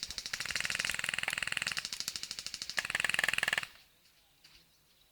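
Airsoft gun firing a long full-auto burst: a rapid, even run of shots that stops about three and a half seconds in.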